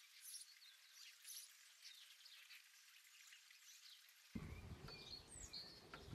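Faint, scattered bird chirps over near silence. About four seconds in, a louder, low outdoor background comes in, with a few more chirps.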